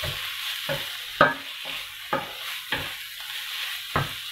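Wooden spatula stirring sliced onions and tomatoes frying in oil and spices in a pan. A light frying sizzle runs under about six uneven knocks and scrapes of the spatula against the pan, the sharpest about a second in.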